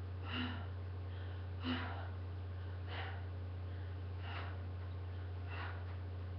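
A woman's breathing during toe-touch crunches: five short, sharp breaths, one with each rep, about every second and a quarter, over a steady low hum.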